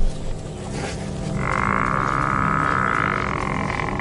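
African buffalo bellowing in distress as lions bring it down: one long, steady call starting about a second and a half in.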